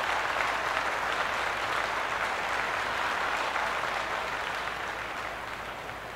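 Crowd applause, a dense even clatter of clapping that slowly fades away.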